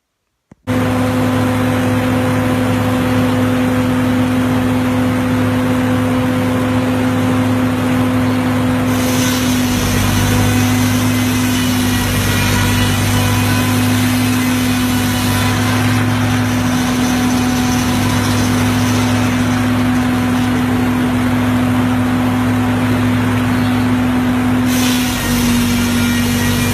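Minneapolis-Moline engine running steadily as the power plant for a sawmill, a constant drone. A higher hiss comes in twice, and the engine's pitch drops slightly near the end.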